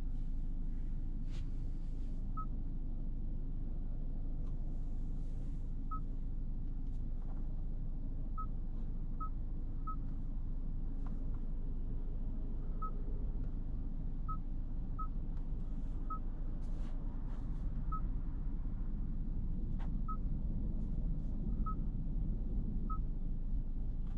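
Cabin noise of a 2022 Kia K8 sedan with a 2.5-litre four-cylinder petrol engine, driving in town: a steady low rumble from engine and road. About a dozen short, high beeps sound at uneven intervals, with a few faint clicks.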